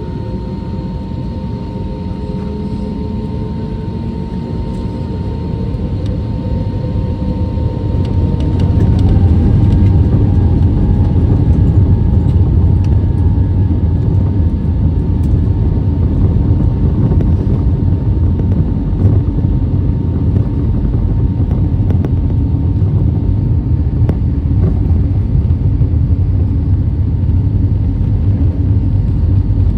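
Airbus A320neo jet engines spooling up to takeoff thrust: several whining tones rise in pitch as the sound swells over the first nine seconds or so, then settle into a loud, steady rumble as the takeoff roll goes on.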